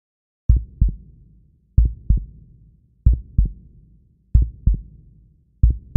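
Heartbeat sound effect: five pairs of deep thumps, each pair a quick lub-dub, repeating about every 1.3 seconds and starting about half a second in.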